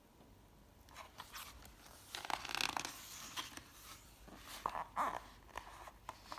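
Paper pages of a small paperback book being turned by hand: rustling and crackling strokes, loudest about two seconds in.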